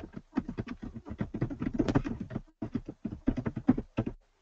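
Typing on a computer keyboard: a quick, steady run of keystrokes with a brief pause about two and a half seconds in.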